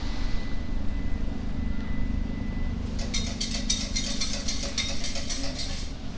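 Steady low rumble of street traffic. A thin high tone fades out about halfway through. From about halfway to near the end, a rapid high-pitched ticking chatter sits on top.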